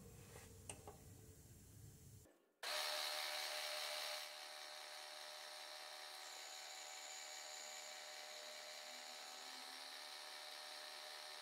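Milling machine cutting the scallop into a Stuart D10 model steam-engine cylinder casting with an end mill: a steady whining, grinding cut that starts suddenly about two and a half seconds in, louder for the first second or so, after a few faint clicks.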